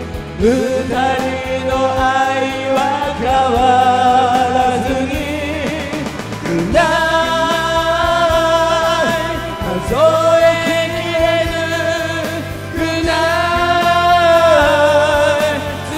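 Two singers singing a rock song into karaoke microphones over a karaoke backing track, in the song's original key.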